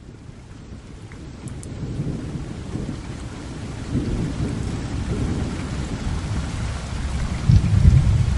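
Steady rain with rolling thunder, fading in and growing louder, with the heaviest low rumble near the end.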